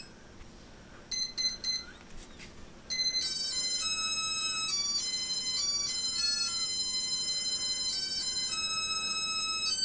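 Quadcopter's Q Brain 25 A 4-in-1 ESC playing a programmed startup song through its brushless motors, as electronic beeps. A short run of beeps comes about a second in, then from about three seconds a continuous melody of held tones stepping up and down in pitch.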